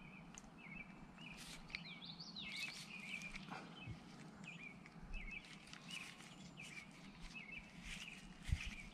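Small birds chirping again and again, with faint handling clicks and one louder knock near the end.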